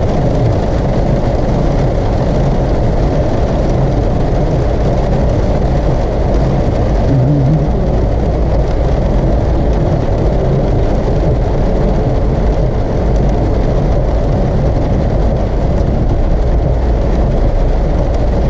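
A car driving in heavy rain: a steady, loud rumble of road and rain noise with no change in level.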